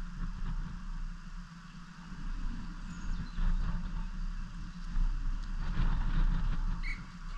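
Outdoor background of a football match: a steady low rumble with faint scattered knocks, swelling louder after about five seconds.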